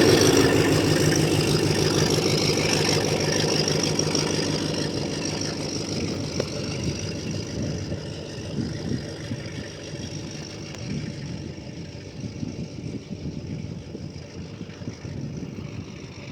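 A TCDD DE 24000-class diesel-electric locomotive running light, with no train behind it. Its diesel engine runs with a low rhythmic beat and some irregular knocking, and fades steadily as the locomotive moves away.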